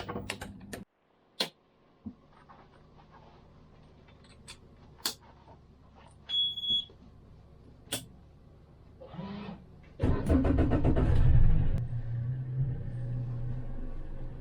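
Scattered clicks and knocks, then a short electronic beep. A few seconds later a boat engine cranks with rapid pulsing, catches, and settles into a steady low idle.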